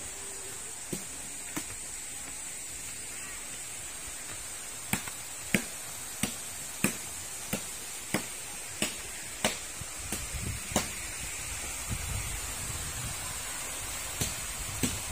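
Footsteps: a run of sharp taps at a walking pace, about one and a half a second, over a steady hiss of rushing water. A low rumble comes in near the end.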